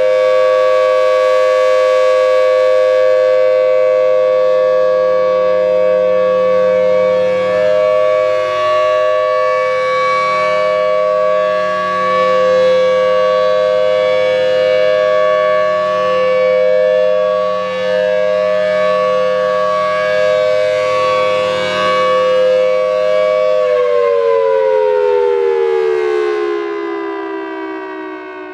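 Federal Signal Thunderbolt 1000 outdoor warning siren sounding the steady Alert signal: one loud held chord of two tones over a low hum. About 24 seconds in, the pitch slides steadily downward as the siren winds down, and the low hum cuts off a couple of seconds later.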